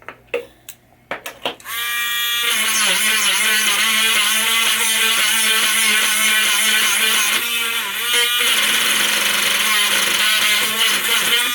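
A few light handling clicks, then a small handheld power tool's motor spins up about two seconds in and runs steadily, its pitch wavering and dipping briefly under load while it cleans out a pinball lamp socket, before cutting off just before the end.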